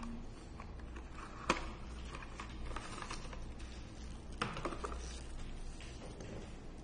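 Unboxing handling noise: black cardboard box inserts, a small plastic camera and its cable being picked up and moved, with light tapping, scraping and rustling and two sharper clicks, about one and a half seconds in and again about four and a half seconds in, over a low steady hum.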